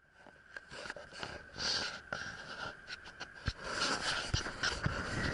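Handling noise from an action camera being turned and repositioned inside a moving car: irregular clicks, knocks and rubbing, growing louder, over a faint cabin hum.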